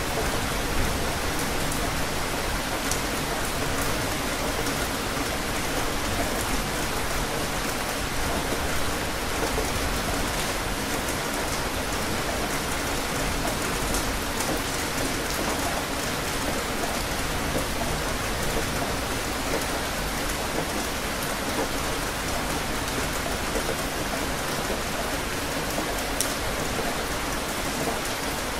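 Steady rain falling: an even hiss of rain on surfaces, with a few sharper drop ticks scattered through it.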